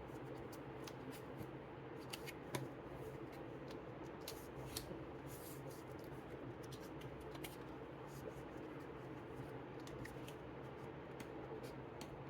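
Faint handling of a lift-the-flap book: scattered soft clicks and paper rustles as its card flaps and pages are lifted and touched, over a low steady hum.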